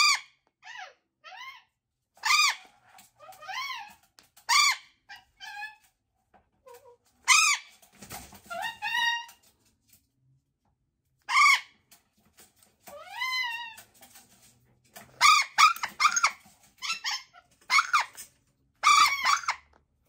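Golden conure screeching over and over in short, arching squawks, a few seconds apart at first and coming quicker near the end. These are distress calls from a bird held in a towel while its cracked, sensitive beak tip is clipped.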